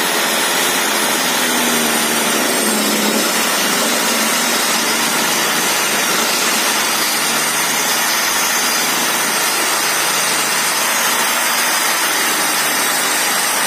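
Uchiha UC 255 900-watt circular saw, fitted with a 7¼-inch 60-tooth Bosch blade, ripping lengthwise through a thick 2-inch wooden beam, running steadily under load.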